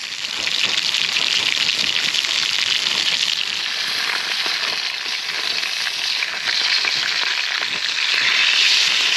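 Burgers sizzling and spitting in a frying pan, a steady hiss full of fine crackles that gets louder in the first second.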